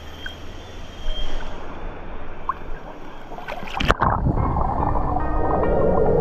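River water lapping and splashing at the surface, then a burst of splashing as the swimmer goes under about four seconds in. From then on the sound is heard underwater: a muffled rumble with bubbling.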